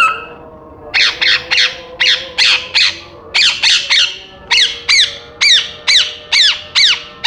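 African grey parrot giving a long run of short squawks, each sliding down in pitch, about fifteen in a row at two or three a second, starting about a second in.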